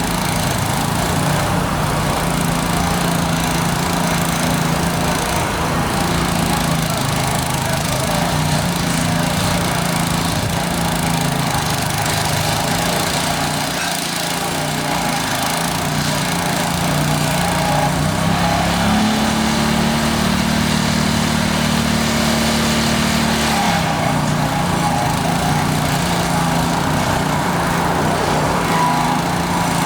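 Construction machine engine running steadily, its pitch rising for about four seconds about two-thirds of the way through, then settling back.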